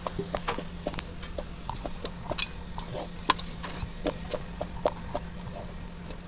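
Steel ladle clinking and scraping against a metal pot while chopped onions are stirred into a spice mixture: irregular light knocks, with sharper clinks about three and five seconds in.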